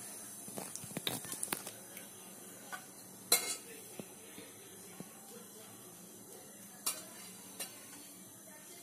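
A few light clicks and knocks of metal cookware around an aluminium pot on a stove: a quick cluster in the first second and a half, then single knocks about three, seven and seven and a half seconds in, over a faint steady hiss.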